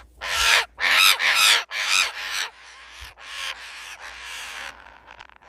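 Parrots squawking: three loud, harsh calls in the first two and a half seconds, then softer, rasping calls that die away near the end.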